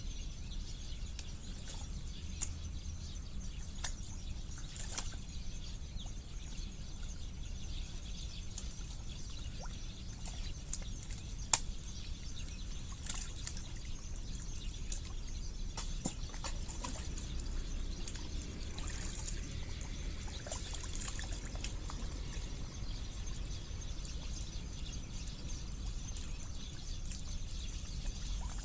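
Wet mud and water: scattered small drips, pops and squelches over a steady low background rumble, with one sharper click about eleven seconds in.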